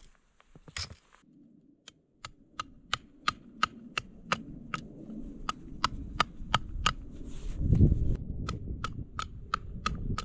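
Back of a hatchet hammering a wooden tent stake into snowy ground: a steady run of sharp, ringing strikes, about three a second, from about two seconds in. Underneath is a low rumble that swells near eight seconds in.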